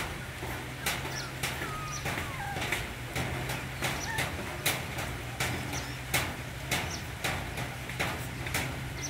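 A litter of puppies eating, their chewing giving sharp irregular clicks about twice a second, with faint short high chirps in between and a steady low hum underneath.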